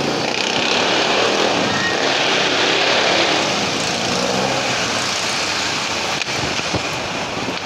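Street traffic noise from motorcycles and cars passing on the road, steady, a little louder about two to three seconds in.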